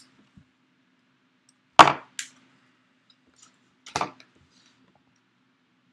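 Sharp knocks and clicks from items and packaging being handled on a tabletop: a loud knock about two seconds in, a lighter click just after, and another knock about four seconds in.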